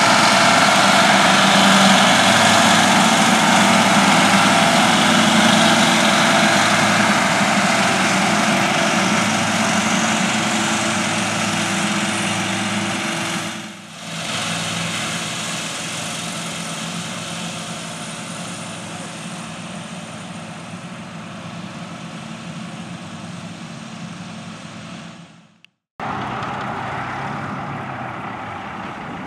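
John Deere R4038 self-propelled fertilizer spreader's diesel engine running as the machine drives across a field. It is loud at first, then after a short break about halfway through it grows slowly fainter as the spreader moves away. Near the end the sound cuts off, and a quieter steady engine sound follows.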